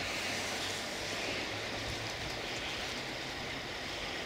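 Steady distant engine drone, a faint low hum over an even outdoor rush, with no sudden sounds.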